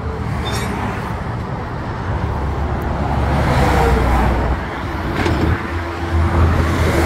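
Highway traffic passing close by: steady tyre and engine noise over a low rumble, swelling as a vehicle goes past about three to four seconds in.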